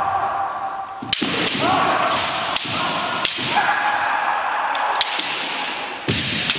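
Kendo sparring: bamboo shinai strike armour or each other with several sharp cracks that echo in the hall. Between the cracks come long, drawn-out kiai shouts from the fencers.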